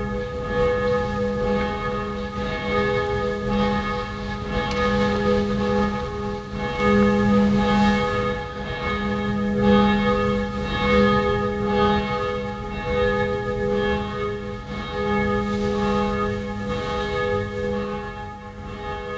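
Church bells ringing: several bells struck over and over in an uneven, overlapping peal, each tone ringing on, easing off near the end.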